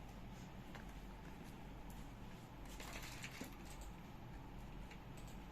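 Faint scattered clicks and light handling noises over a low steady hum.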